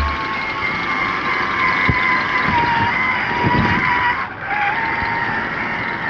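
Whine of an RC rock crawler's electric drive, the Hobbywing Fusion SE motor and its gearing, as the truck crawls slowly over rock, with a few dull knocks of the tyres and chassis against the stone. The whine cuts out briefly about four seconds in and comes back a little lower.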